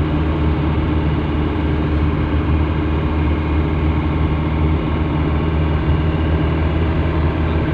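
Car engine and tyre noise heard from inside the cabin while driving at a steady speed: an even, low hum that does not change.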